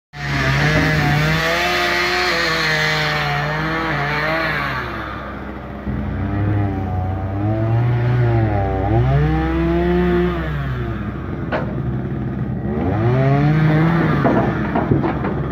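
Hitachi crawler excavator's diesel engine running under hydraulic load while digging, its pitch sagging and recovering again and again as the arm and bucket work, with a hiss in the first few seconds. Near the end, sharp clatters as soil and stones are dumped from the bucket into the dump truck's bed.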